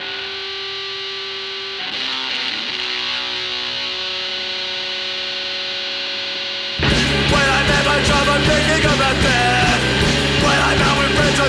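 Punk rock instrumental: a sustained chord rings steadily, with a few new notes joining about two seconds in. About seven seconds in, the full band comes in with drums and guitar at a louder level.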